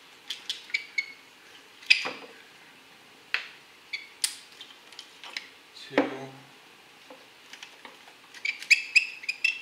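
Sharp plastic clicks and rattles as the electrical connectors are pried and pulled off the ignition coils of a Honda K24 engine. They come singly every second or so, then in a quick flurry near the end.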